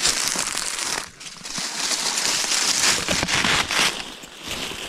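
Dry dead leaves and twigs crackling and rustling in gloved hands as the leaves are pulled off a branch and bundled. There are two spells of dense crackling with a short lull about a second in, and it softens near the end.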